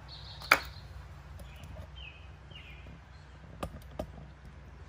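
A sharp click about half a second in and two lighter clicks near the end, over a low steady hum, with faint bird chirps in the background.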